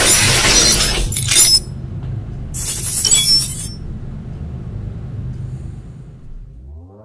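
Cinematic logo-intro sound effects: a loud noisy whoosh, then a shattering crash about halfway through, over a low drone that fades away near the end.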